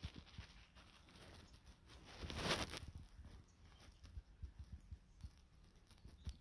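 Soft scratchy rustling and rubbing as a small fabric valerian sachet is handled and pushed over a fleece blanket, with a louder rustle about two and a half seconds in.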